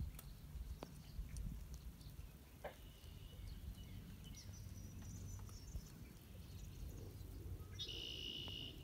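Faint birds calling at a lakeside over a low rumble. A thin held note comes about three seconds in, then a higher one, and near the end a louder, richer call lasting about a second.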